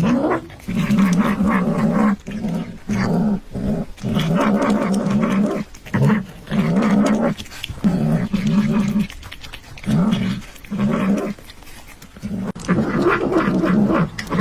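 A dog's drawn-out, growling vocalizations, about ten in a row, each lasting from half a second to nearly two seconds with short pauses between.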